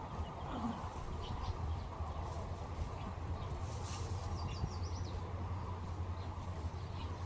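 Outdoor ambience with a steady low rumble and a few faint bird chirps, including a quick run of about five high notes a little past the middle.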